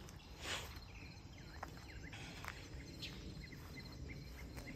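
Faint backyard ambience: a steady insect hum with a few soft bird chirps, and a brief rustle about half a second in.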